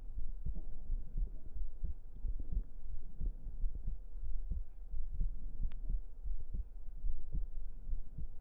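A human heartbeat heard close up through the microphone: a steady, regular run of low, soft thumps.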